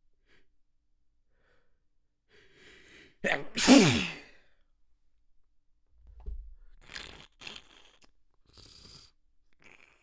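A person sneezes hard about three seconds in, after a short breathy intake. The burst comes in two quick parts, the second falling in pitch. A few softer breathy sounds follow in the second half.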